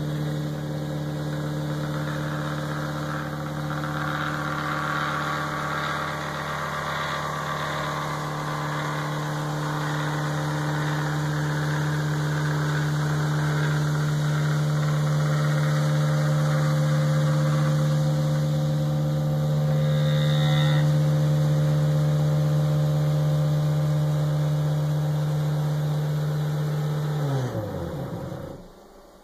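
Homemade CNC router running while its stepper-driven gantry moves across the bed: a steady motor hum with overtones and some added mechanical noise. Near the end the motor's pitch falls as it winds down and stops.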